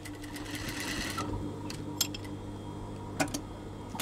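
Industrial sewing machine running, sewing coarse tacking stitches through denim with a steady hum. Two sharp clicks come about halfway through and again a second later.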